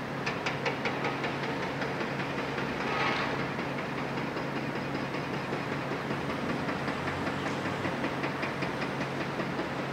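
Doosan DX255LC-5 excavator's six-cylinder DL06P diesel running steadily while its grab loads demolition rubble into a steel skip, with a rapid rattling clatter of debris. There is a short hissing rush about three seconds in.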